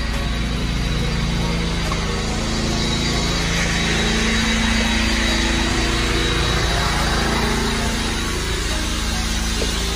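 Mytee Escape electric truck-mount carpet extractor running, a steady mechanical drone with a hiss over it that swells a little midway.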